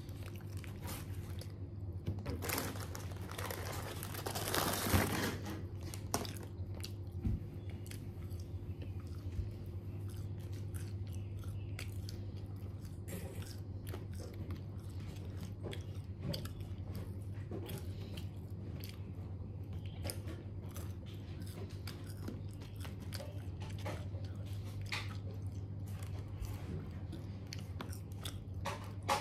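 Close-up chewing and crunching of crispy KFC fried food (a chicken burger and fries), with a louder, noisier stretch about two to five seconds in and scattered small crackling clicks after, over a steady low hum.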